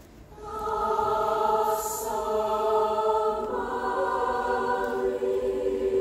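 Mixed show choir singing sustained chords in close harmony. The choir comes in about half a second in and moves to a new chord about halfway through.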